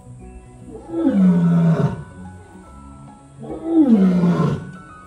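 Lioness roaring: two loud calls about a second each, each falling in pitch, about two and a half seconds apart, part of a roaring bout.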